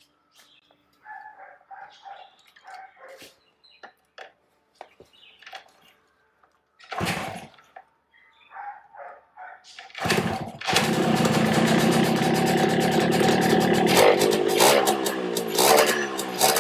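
Yamaha RX135's two-stroke single-cylinder engine being kick-started for its first start after a rebuild. It catches about ten seconds in and runs loudly, revved up and down near the end.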